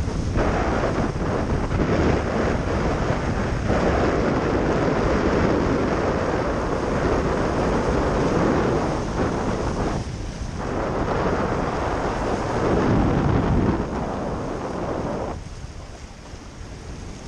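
Ocean surf surging and washing around the jetty rocks, with wind buffeting the microphone; the rush swells and eases and falls off noticeably near the end.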